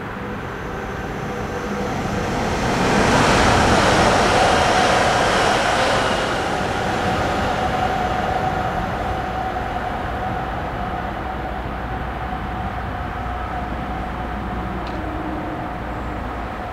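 Electric trains running on a high-speed line: a rushing noise swells to its loudest a few seconds in, then settles into a steadier train rumble with a faint tone held through it.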